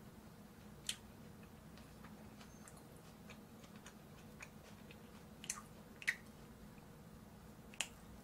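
About four faint, sharp clicks, the loudest about six seconds in, over a quiet steady room hum.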